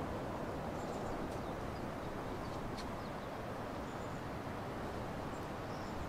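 Steady outdoor rushing noise with faint, short bird chirps here and there.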